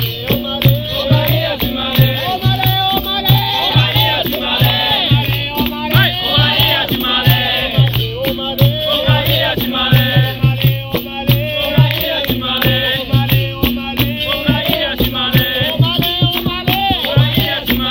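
Capoeira roda music: voices singing over a steady drum beat, with a shaken rattle.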